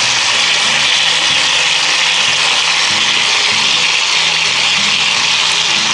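Corned beef brisket sizzling in a hot cast-iron Dutch oven over charcoal, its fat rendering with a steady, even hiss.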